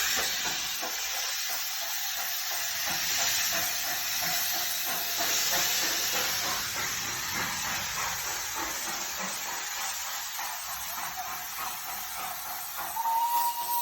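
Darjeeling Himalayan Railway steam locomotive letting off steam: a steady hiss. A steady high tone starts about a second before the end.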